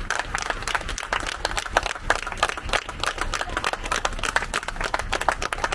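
A crowd clapping: a dense, irregular patter of many hands clapping together.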